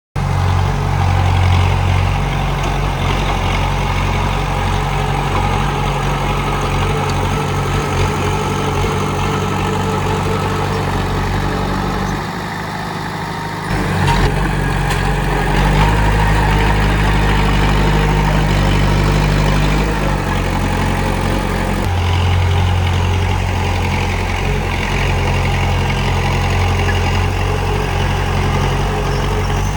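Komatsu D31P bulldozer's diesel engine running steadily. The engine sound drops briefly about twelve seconds in, then comes back louder at about fourteen seconds.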